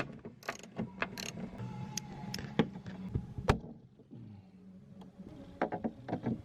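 Irregular clicks and metallic clinks of a socket ratchet on a long extension undoing bolts inside a car door, coming in two bunches with a pause between.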